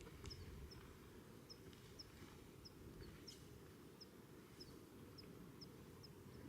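Faint bird call: a short, high chirp repeated about twice a second, over a low steady rumble.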